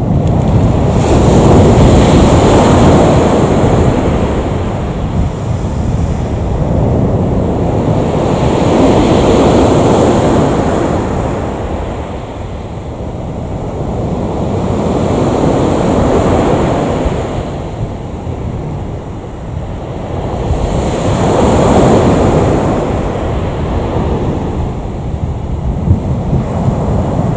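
Wind rumbling on the microphone, with a rushing noise that swells and fades about every six seconds, like waves breaking on a shore.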